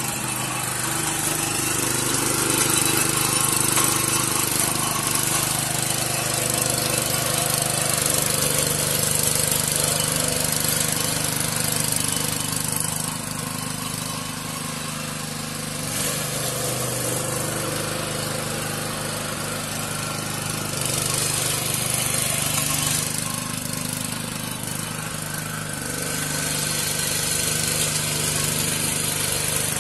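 Small Honda petrol engine on a single-wheel power weeder running steadily while its tines churn through soil, easing slightly in loudness a couple of times.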